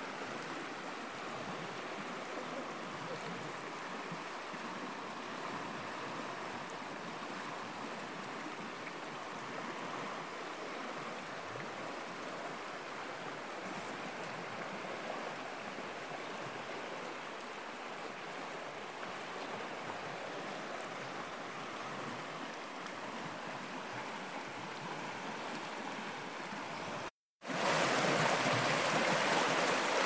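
Shallow, fast river rushing steadily over stones. About 27 seconds in, the sound cuts out for a moment and comes back louder and closer: water churning and gurgling over a stony riffle.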